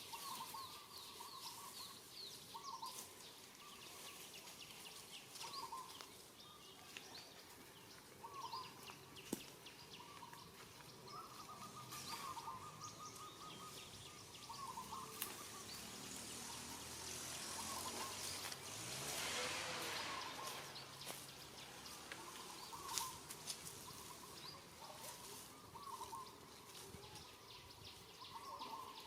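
Outdoor ambience with a short chirping call repeated every second or two. About two-thirds of the way through, a swell of hissing noise rises and fades.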